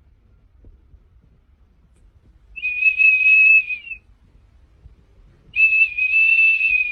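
Two long, steady, high whistled notes, each held about a second and a half, with a pause of about one and a half seconds between them.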